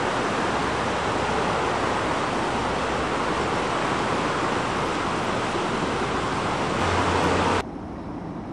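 A steady rushing noise that swells slightly with a low hum, then drops abruptly to a softer hiss about a second before the end.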